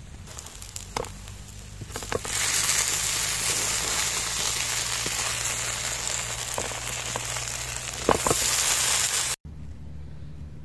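Hot animal fat sizzling and crackling in a pan, with a few sharp clicks. The loud hiss starts about two seconds in and cuts off suddenly near the end.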